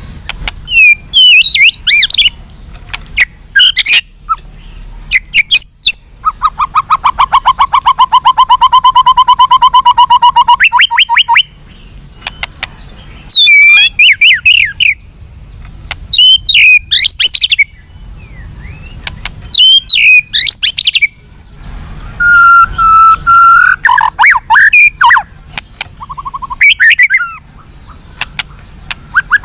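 White-rumped shama (murai batu) singing loudly in fighter style: short bursts of sweeping, fluting whistled phrases, broken by a fast run of repeated lower notes lasting about five seconds near the middle.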